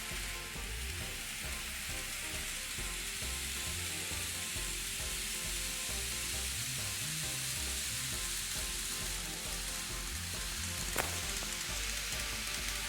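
N gauge model train running on the layout track: a steady fine hiss and low rumble of small wheels and the motor, with one sharp click about eleven seconds in.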